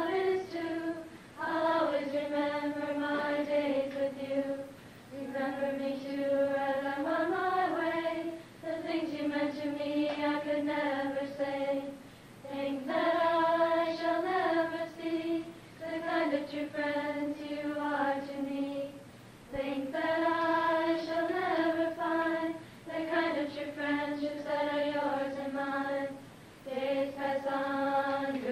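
A group of voices singing a slow song without instruments, in long held notes and phrases of two to three seconds, with short breaks for breath between them.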